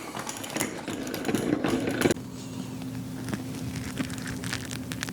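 Honey extractor rattling and clicking as it spins, cutting off abruptly about two seconds in, leaving a steady low hum with a few faint clicks.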